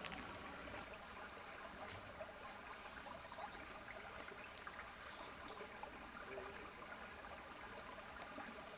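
Faint steady outdoor background hiss, with a couple of faint high gliding notes and then a short high hiss about five seconds in.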